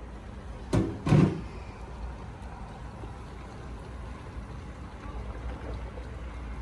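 Two knocks of a cooking pot being handled, close together about a second in, over a steady low rumble.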